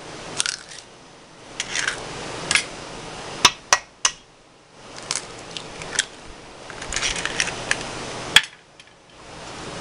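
Eggs being cracked open over a stainless steel mixing bowl: several sharp knocks of eggshell, three close together about a third of the way in and more later, with rustling of handling between.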